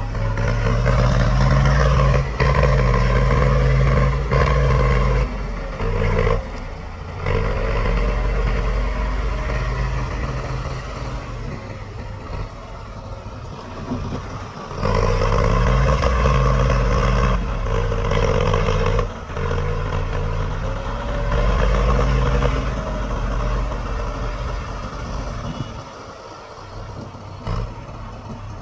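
Diesel engine of heavy construction machinery working under load, its engine note rising and falling several times as the load comes and goes.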